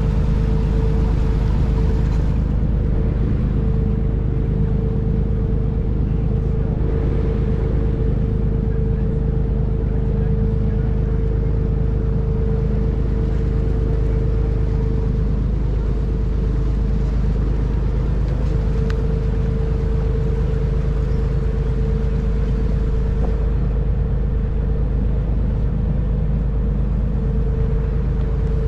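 Engine of a 10-metre tour boat running steadily, heard on board: a constant low hum with a steady mid-pitched drone over it.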